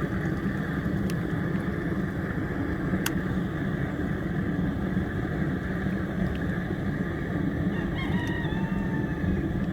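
A rooster crowing once near the end, over a steady low rushing noise.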